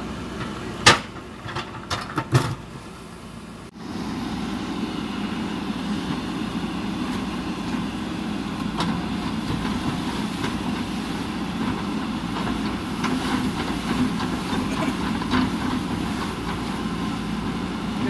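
JCB backhoe loader's diesel engine running while the backhoe bucket breaks old culvert concrete, with four sharp knocks in the first few seconds, the loudest about a second in. After a short break near four seconds the engine runs on steadily and louder.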